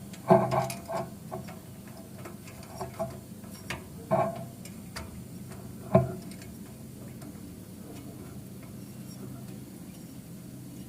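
Scattered sharp clicks and knocks of small metal parts being handled as a dipstick is fitted into the engine, the loudest about six seconds in. A faint steady hum runs underneath.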